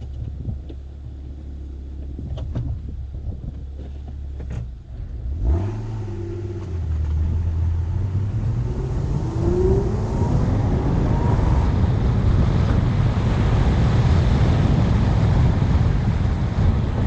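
A Porsche's engine, first a steady low idle, then about five seconds in accelerating hard with its note rising. Wind and road noise grow steadily louder as it picks up speed.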